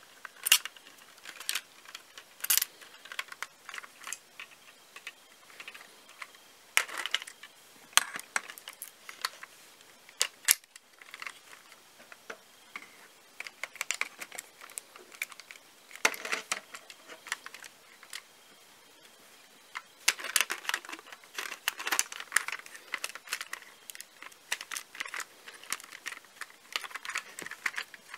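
LEGO bricks and Technic plastic parts being handled and fitted: irregular small plastic clicks and rattles, with a couple of quieter pauses partway through.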